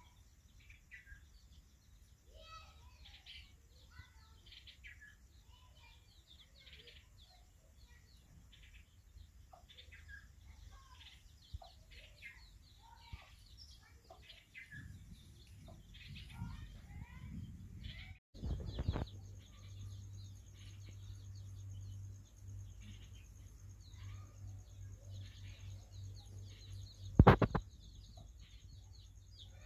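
Aseel chicks peeping, a running string of short high chirps, with a steady low hum joining about two-thirds through and a sudden loud thump near the end.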